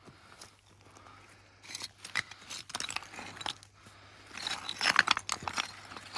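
Loose walling stones clinking and knocking against one another as they are sorted and shifted by hand, a run of sharp clacks that starts about two seconds in and grows busier after the middle.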